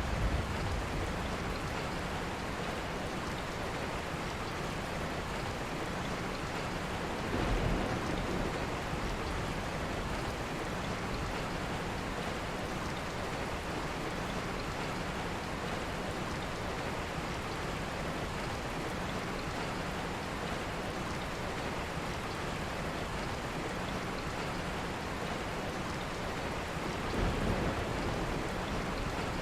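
Steady, heavy rain falling, an even dense hiss, with two brief low swells, about seven seconds in and near the end.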